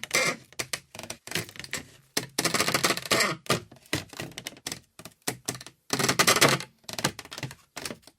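Wood creaking in a series of irregular creaks. Each creak is a rapid crackle of small ticks lasting from a fraction of a second to over a second, with short silent gaps between them.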